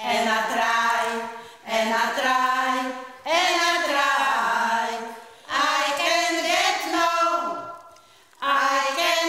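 A group of older women's voices singing a folk song unaccompanied, in short phrases with brief breaks for breath between them.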